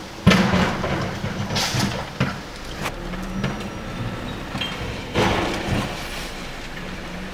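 Rear-loading garbage truck's engine running steadily while a blue recycling cart is tipped into the hopper. A loud bang a moment in is followed by a second or two of recyclables clattering down. A few smaller knocks follow, and another burst of clattering comes about five seconds in.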